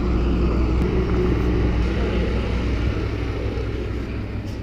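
A large truck's engine running with a steady low drone as the truck moves along the road.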